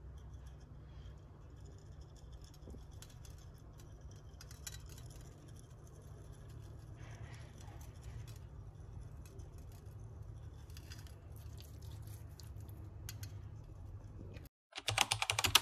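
Faint kitchen sounds of meat being seasoned in a metal roasting pan: light pattering and ticks as spice is shaken on and the meat is handled and rubbed, over a low steady hum. A short, much louder burst of noise comes just before the end.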